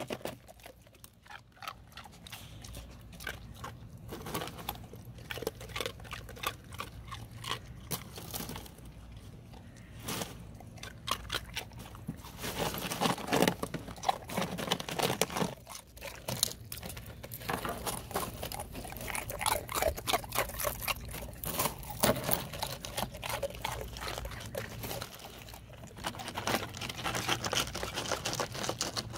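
Dogs crunching and chewing ice cubes: a steady run of irregular sharp crunches, louder and busier from about twelve seconds in.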